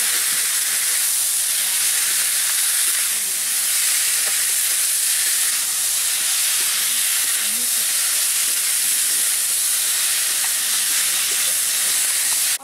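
Chopped pumpkin greens and vegetables sizzling in oil in a metal kadai as a spatula stirs them: a steady, loud hiss.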